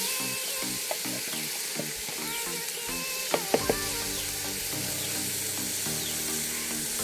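Pickle mixture of bird's eye chillies, papaya and carrot sizzling in hot coconut oil in a pan while it is stirred, with three sharp taps about three and a half seconds in. Background music plays under it.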